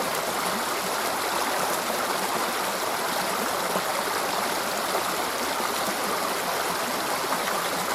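Small river flowing, a steady rush of running water.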